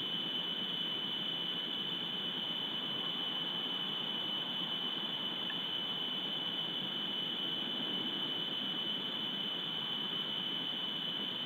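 Steady hiss with a constant high-pitched whine, unchanging throughout: electronic noise from an outdoor surveillance camera's microphone, with no animal or other event heard.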